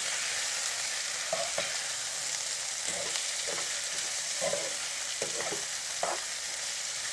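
Blanched ivy gourd pieces and onions sizzling in hot oil in a kadai while being stirred and sautéed, with short scrapes of the stirring every second or so over a steady sizzle.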